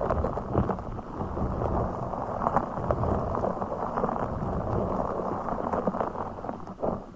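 Dense, muffled crackling and scratching close to the microphone as a blue fish toy is handled for ASMR triggers. It thins out just before the end.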